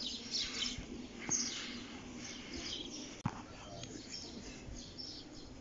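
Small birds chirping over and over in the open air, with a steady background hum of the surroundings. A single sharp click about three seconds in.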